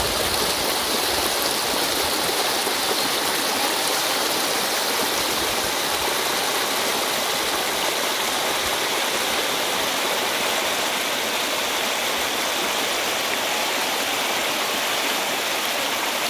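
Rushing water of a flowing river, a steady even rush with no change throughout.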